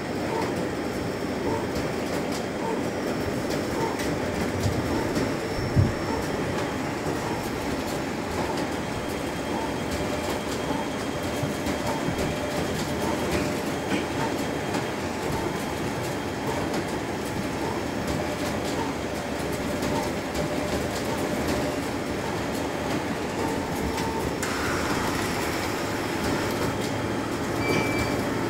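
Canon imagePROGRAF iPF750 wide-format inkjet printer running while it prints, a steady mechanical whirr with a light tick about once a second. A single knock comes about six seconds in, and a brighter, hissier sound joins about 24 seconds in.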